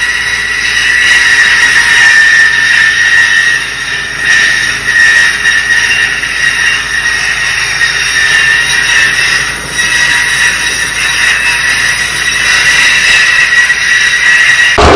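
Tractor-driven sugarcane cutting machine running through standing cane, giving a loud, steady high-pitched whine over its clatter.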